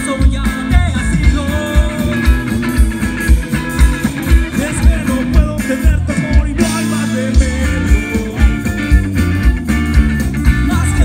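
Live band playing through the stage sound system: guitars, keyboard and drums on a steady beat, with a lead voice singing. The beat breaks off briefly a little past halfway, then comes back in.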